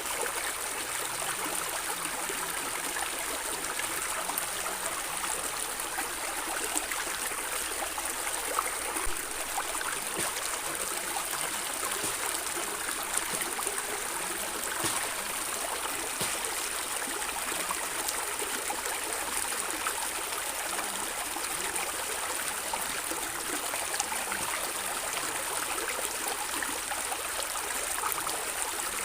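A shallow stream running steadily over stones, gurgling and trickling, with many small splashes.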